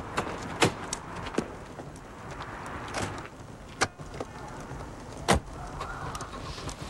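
About six sharp, irregular knocks or cracks over a steady hiss.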